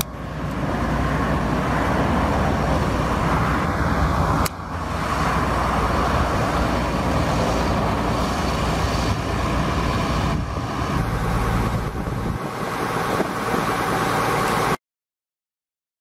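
Case IH 7140 Magnum tractor's six-cylinder turbo diesel running as the tractor drives. There is a brief break about four and a half seconds in, and the sound cuts off abruptly near the end.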